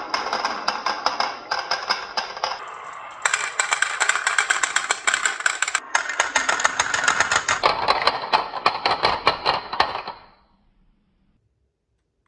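Many marbles rolling and clattering down a wooden marble run: a dense stream of sharp clicks with some ringing tones. It cuts off abruptly about ten seconds in.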